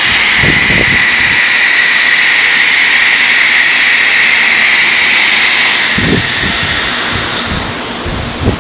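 Automatic tool-change spindle of a 4-axis stone CNC router blowing compressed air during a tool swap: a loud, steady hiss with a whine in it that fades out near the end. A few low clunks come near the start and again near the end.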